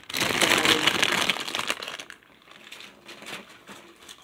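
Plastic LEGO polybag crinkling loudly for about two seconds as it is searched for leftover pieces, then only faint light clicks.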